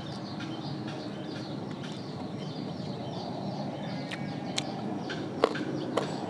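A person chewing and smacking while eating, over a steady background noise, with a few sharp clicks in the last second and a half.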